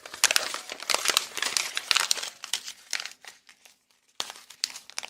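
Close crumpling and crinkling, dense crackles for about three seconds, then a pause and another short bout near the end.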